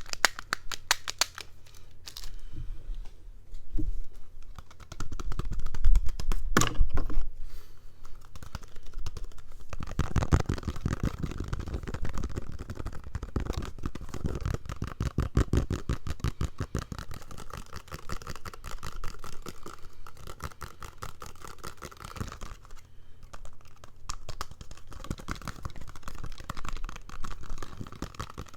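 Rapid, continuous tapping and scratching close to the microphone, an ASMR trigger, with a heavier, louder stretch about a fifth of the way in.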